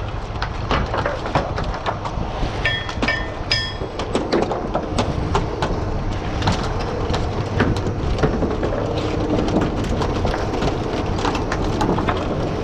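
Oysters being culled by hand on a wooden culling board: shells clattering and knocking against each other and the board in many sharp clicks, over the low, steady running of the workboat's engine. A short run of high beeping tones sounds about three seconds in.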